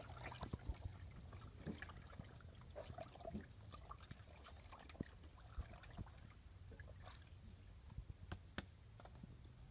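Quiet handling sounds: scattered light clicks and taps, a few sharper ones from about five seconds in, over a low steady hum.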